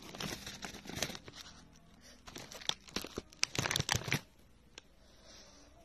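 Plastic wrapping and packaging crinkling and rustling as items are handled, with scattered sharp clicks. It comes in two busy spells, in the first second and again around three to four seconds in, then dies down.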